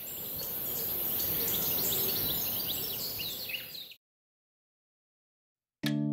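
Birds chirping in quick short calls over a steady rushing hiss, fading in and cutting off abruptly about four seconds in. After a short silence, keyboard music starts near the end.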